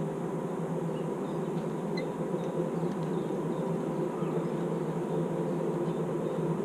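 Canal boat's engine running steadily at low revs, a continuous low drone.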